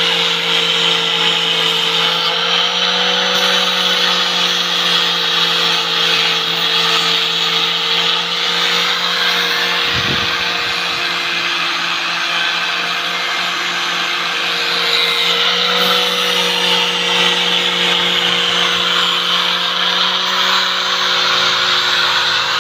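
Electric angle grinder with a sanding disc running steadily while round bamboo pieces are pressed against it to sand them smooth: a continuous high motor whine with grinding hiss, its pitch shifting slightly now and then as the work is pressed on.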